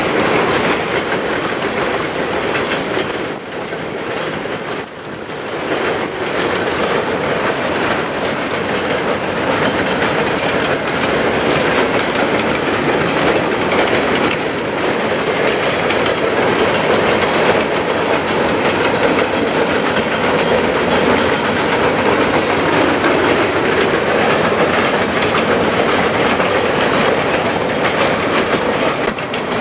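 Freight train cars rolling steadily across a low railroad bridge, the wheels clicking over the rail joints, with a continuous rumble. The sound dips briefly about four seconds in.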